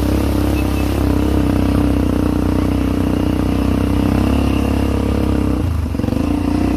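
ATV engine running steadily under throttle, easing off briefly about six seconds in and then picking up again.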